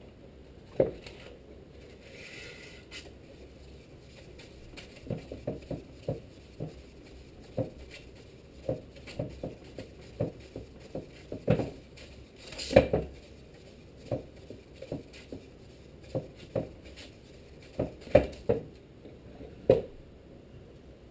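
Scattered metallic clicks and knocks from a Tecumseh HSK70 steel crankshaft shifting and turning on its wooden rest while its connecting-rod journal is polished by hand with a strip of 600-grit wet/dry sandpaper. The rasp of the paper itself is faint; the knocks come at irregular intervals, loudest about two-thirds of the way through.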